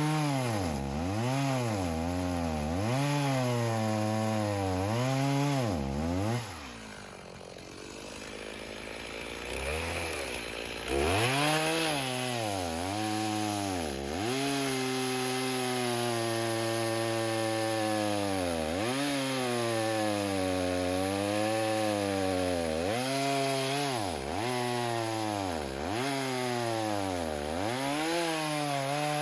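Stihl MS 290 two-stroke chainsaw cutting wood. The engine pitch sags and recovers again and again as the chain bites under load. About a quarter of the way in it drops to idle for a few seconds, then revs back up and cuts on.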